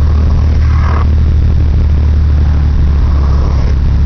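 An 18-inch Fi subwoofer in a trunk wall playing loud, steady deep bass from the car stereo.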